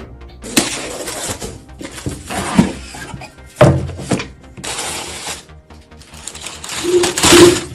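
Handling noise from computer parts and packaging: five bursts of rustling and scraping, each about a second long, with a few sharp knocks among them, over faint background music.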